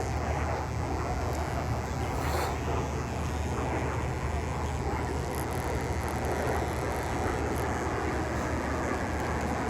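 Steady rumble of jet aircraft engines overhead, with no rise or fall.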